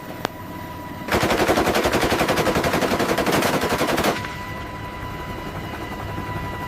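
A Gatling-type rotary machine gun fires one continuous rapid burst of about three seconds, starting about a second in. The burst cuts off, leaving a steady high-pitched hum.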